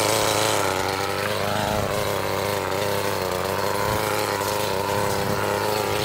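Echo CS-280TES top-handle chainsaw's small two-stroke engine idling steadily, rising a little in pitch for a moment about one and a half seconds in.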